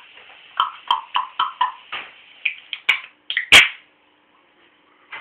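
A pet animal making a quick run of short, chirping calls, about four a second, with a sharp loud knock about three and a half seconds in.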